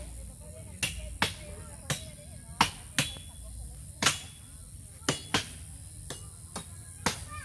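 Repeated chopping blows of a hand tool biting into the wood of a fallen amate (fig) tree: about a dozen sharp strikes at an uneven pace, sometimes two in quick succession, each with a brief ring.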